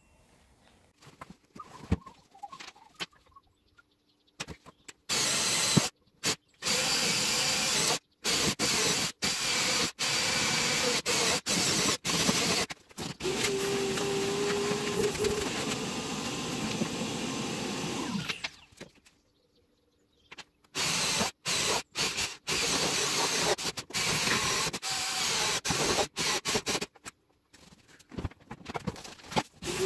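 Cordless drill running in repeated runs of a few seconds, drilling into a wooden baseboard, with abrupt gaps between the runs and a longer pause in the middle.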